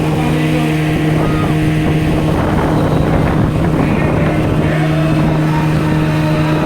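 Tour boat's motor running at a steady speed, a constant droning hum with water and wind noise around it.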